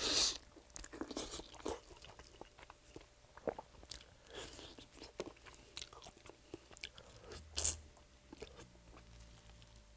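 Close-up eating sounds of a person biting into and chewing bone-in sauced fried chicken, tearing the meat from the bone: a run of short crunches and crackles, with a loud bite right at the start and another about three quarters of the way through.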